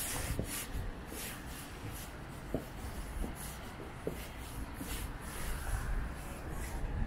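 Footsteps scuffing on pavement at an even walking pace, about two steps a second, over a steady low outdoor rumble.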